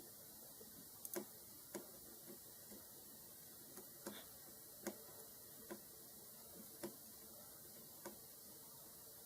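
Near silence with faint, irregular small clicks and taps, roughly one a second, as of small tools touching the phone's board on the workbench.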